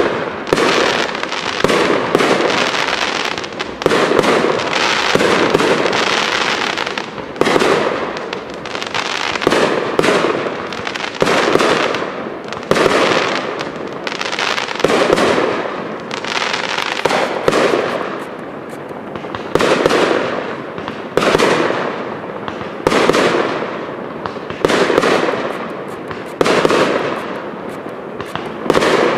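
Aerial fireworks display: a steady barrage of shots and bursts, a sharp report about every second and a half, each one fading away before the next.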